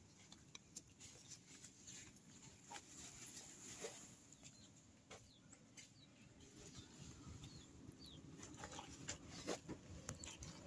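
Faint, scattered small clicks and smacks of cats chewing and licking at a cupcake, with a few faint high chirps in the background.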